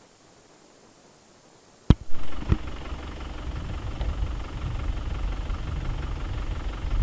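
Faint hiss, then a sharp click about two seconds in, followed by a car engine idling with a steady low rumble.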